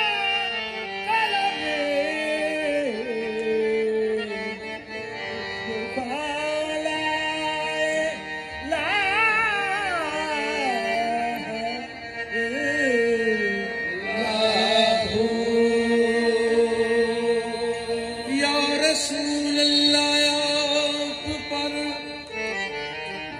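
Live qawwali: a lead male voice sings long, drawn-out melismatic phrases that glide up and down in pitch over a steady harmonium drone.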